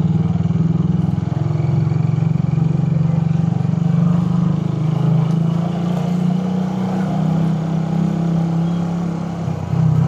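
Suzuki Raider 150's carburetted single-cylinder four-stroke engine running on the move, its note wavering with the throttle. It dips briefly near the end, then picks up again.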